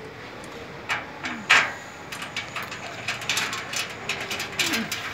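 Ratchet spanner clicking as a screw is tightened to fix a plastic slide to a metal platform frame: a couple of sharper clicks in the first second and a half, then a run of quick, irregular clicks.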